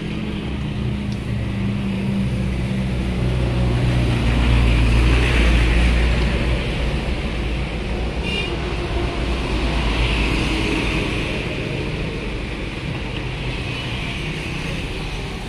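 Hot oil sizzling as battered snacks deep-fry in a wok, over a low motor rumble that swells about four seconds in and again near the ten-second mark.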